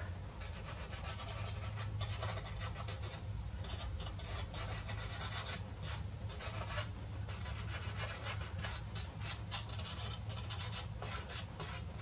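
Soft pastel stick rubbing across paper in quick, repeated short strokes.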